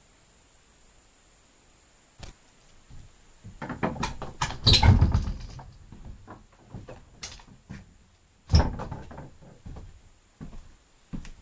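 A door being handled: a click, then a run of knocks and rattles, then a single hard thump about eight and a half seconds in, with a few smaller clicks after it, as someone comes back into the house.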